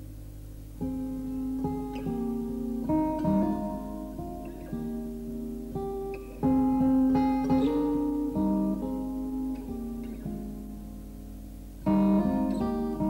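Background music on acoustic guitar: plucked notes and strummed chords that ring and fade, with several louder chord attacks.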